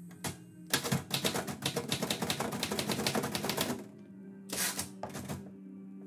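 Manual typewriter being typed on: a fast run of key strikes for about three seconds, then two brief, louder clatters near the end.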